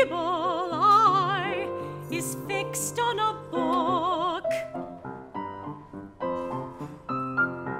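Soprano singing an art song in a trained operatic voice with wide vibrato over piano accompaniment; about halfway through the voice stops and the piano plays on alone.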